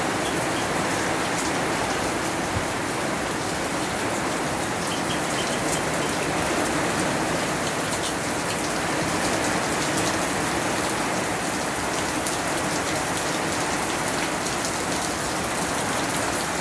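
Steady rain falling and pattering on surfaces, an even hiss with fine drop ticks throughout.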